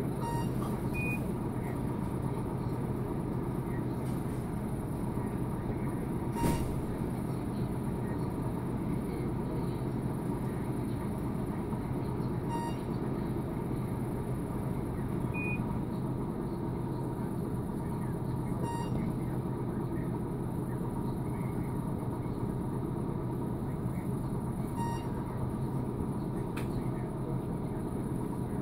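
Steady low hum and rumble of hospital-room ventilation and equipment, with a short electronic beep about every six seconds and a few fainter, higher beeps.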